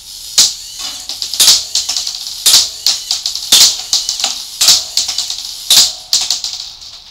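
LEGO Mindstorms NXT 2.0 ball-shooting toy gun firing six shots, about one a second, each a sharp plastic snap. Between the shots its electric motors and reloading gears whir and rattle steadily.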